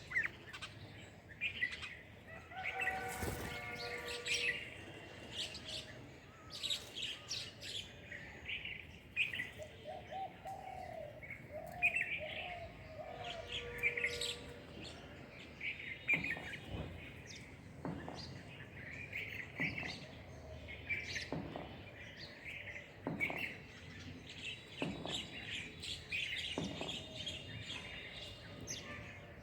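Several small birds chirping and calling back and forth in quick short notes, with a few lower, pitched calls repeated a few times around the middle.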